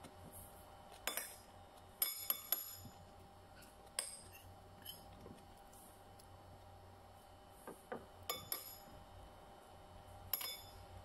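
Metal spoon clinking and scraping against a ceramic plate while scooping rice. The sharp clinks come in scattered groups: one about a second in, three in quick succession around two seconds, a single one at four seconds, a cluster around eight seconds and another near the end.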